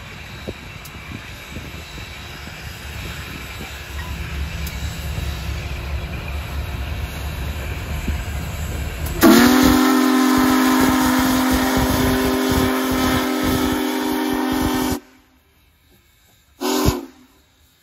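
Union Pacific Big Boy 4014, a 4-8-8-4 articulated steam locomotive, approaches and passes with a low rumble of exhaust and running gear that grows steadily louder. About nine seconds in, its steam whistle blows one loud long chord of several notes for about six seconds. The sound then drops suddenly to quiet, and a short whistle blast comes near the end.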